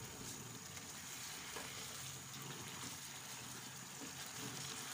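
Chicken in a milk sauce simmering in a frying pan, a faint steady bubbling and sizzling as a wooden spoon stirs it.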